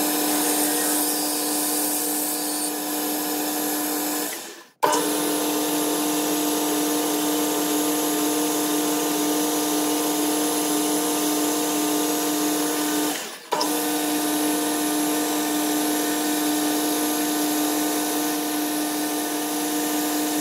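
Boxford BUD lathe running steadily, its motor and spindle giving a constant hum, while a drill bit bores into brass stock held in the chuck. The sound fades away and comes straight back twice, about four seconds in and again about thirteen seconds in.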